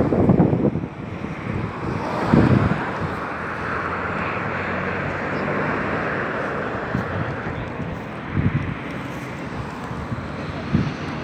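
Wind blowing across the microphone: a steady rush with a few low buffeting thumps from gusts, one about two seconds in and more near the end.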